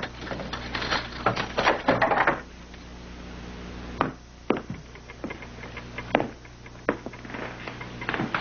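A quick cluster of knocks and taps, then footsteps as scattered single knocks, over a steady low hum; the hum changes abruptly about four seconds in.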